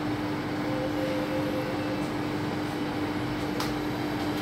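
Steady mechanical hum with a constant low tone over an even hiss, like a fan or air-conditioning unit running, with one faint click near the end.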